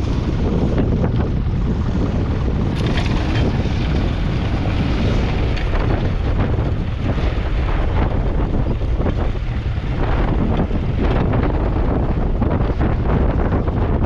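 1943 Fordson Model N tractor's 4.0-litre four-cylinder Perkins P4 diesel running steadily, with wind buffeting the microphone.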